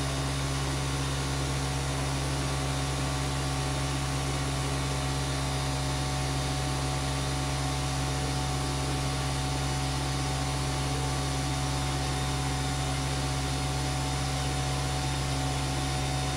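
Steady, unchanging low hum with a hiss over it, like a running machine or fan, the same level throughout.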